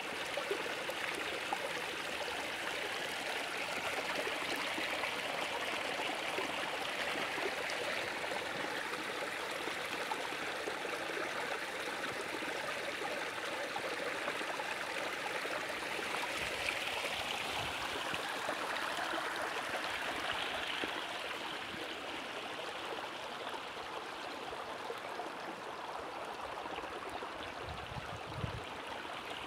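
Stream running, a steady rush of water, with a few dull bumps near the end.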